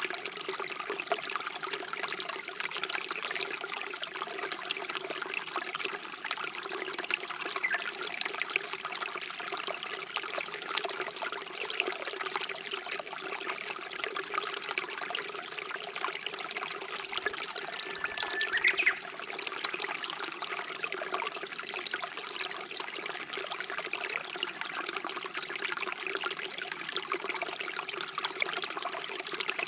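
Stream water flowing and trickling steadily. About two-thirds of the way through, a bird calls once: a short held note that sweeps up at the end.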